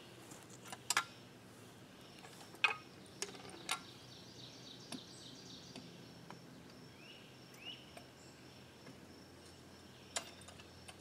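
A few short sharp knocks and clinks, the loudest in the first three seconds and one more near the end, as a cast-iron pitcher pump is handled and threaded onto the steel well pipe. Under them a steady high insect buzz and a couple of bird chirps.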